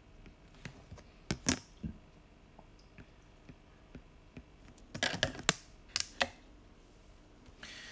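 A few sharp clicks and taps of a stylus on a drawing tablet as dashed lines are drawn, bunched about a second and a half in and again around five to six seconds in.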